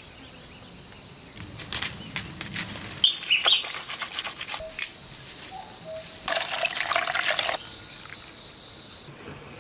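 Water splashing and squelching in several bursts as hands knead and squeeze tofu-tree leaves in a bowl of water to press out the green juice for leaf tofu. A bird chirps briefly about three seconds in, over a faint steady high tone.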